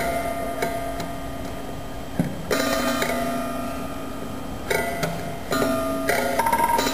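Music with ringing, held notes, and new notes struck several times.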